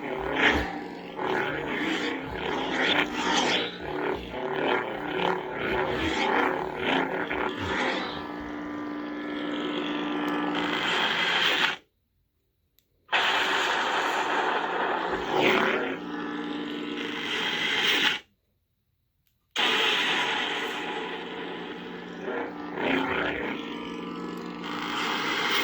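The BlueForce 'Return of the Sith' lightsaber soundfont. A humming blade is swung and clashed rapidly at first, then hums more steadily. The blade cuts off abruptly and reignites about a second later, twice, and cuts off again at the very end.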